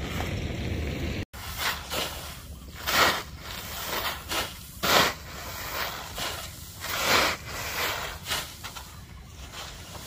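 Paddy rice scooped with a plastic scoop and poured into a woven sack: a series of short rustling rushes of grain, one every second or so. Wind rumbles on the microphone for about the first second, before a sudden cut.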